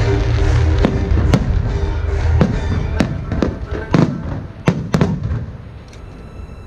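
Aerial fireworks exploding: a string of about nine sharp bangs at irregular intervals, over loud show music with a heavy bass that fades out near the end.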